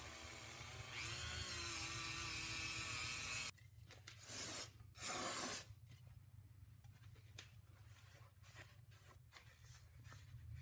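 A power tool spins a small 120-grit sanding wheel against the cast-iron freeze-plug bore of an engine block, its pitch rising about a second in, then cuts off suddenly. Two short loud rushes of noise follow about a second apart, then faint handling sounds.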